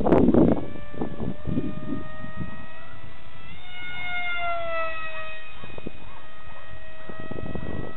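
High-pitched whine of a Feigao 120 3000kv brushless inrunner motor and propeller on a foam RC SU-37 model jet in flight. The pitch rises about three and a half seconds in, then slides down as the plane passes. There is a brief loud rumble at the very start.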